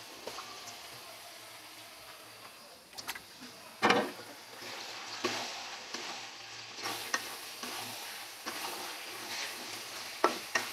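Chicken pieces sizzling in hot oil and spice paste in a karahi while a metal spatula stirs and scrapes them, the stage of frying the meat in the masala. A sharp knock comes about four seconds in, after which the sizzling grows denser, with small clicks of the spatula against the pan.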